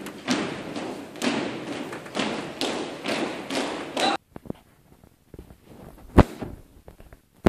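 A drill team marching in step on a gymnasium's hardwood floor: echoing footfalls at about two steps a second. The marching cuts off suddenly about four seconds in, leaving quiet with faint clicks and one sharp thud near the end.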